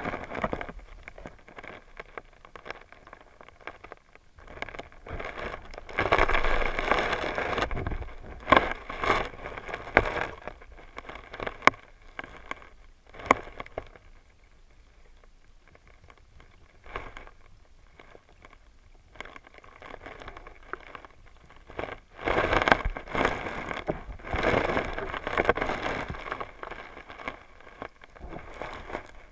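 Creek water heard through a submerged camera: irregular crackling and rustling with sharp clicks. It comes in louder stretches and eases off for a few seconds in the middle.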